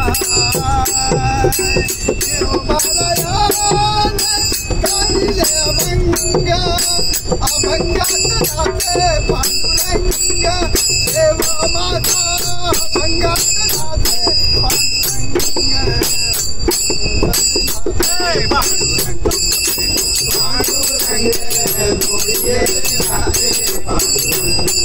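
Marathi abhang bhajan sung by men's voices to a pair of small brass hand cymbals (taal) struck in a steady rhythm, the cymbals' ringing sustained underneath.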